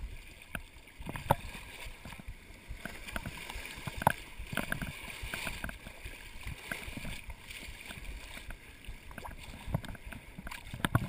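Shallow sea water sloshing and lapping at the microphone held at the surface, with irregular short splashes and knocks.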